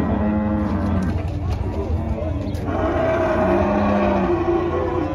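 Cattle mooing in a holding pen: several long, low calls, two of them overlapping about three seconds in, over a steady low rumble.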